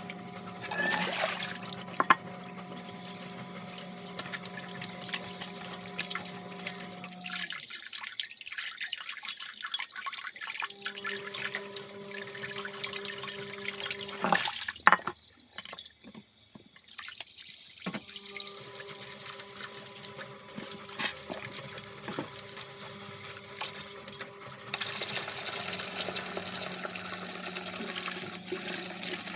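Tap water running as a vacuum cleaner's dust canister and filters are rinsed, with a steady hum beneath it. The water stops twice for about three seconds, a quarter of the way in and again just past the middle.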